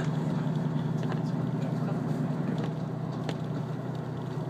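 Inside a KiHa 54 diesel railcar under way: a steady low diesel engine drone mixed with running noise from the wheels on the rails, with a couple of faint clicks.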